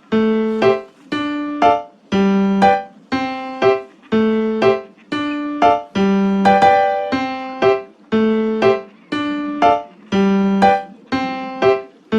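Background music: a piano-like keyboard playing a simple repeating figure, a held note followed by a short higher note, about once a second.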